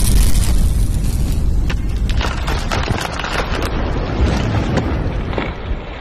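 Intro logo sound effect: a deep boom that rumbles and slowly fades, with sharp crackling like spraying sparks over it through the middle.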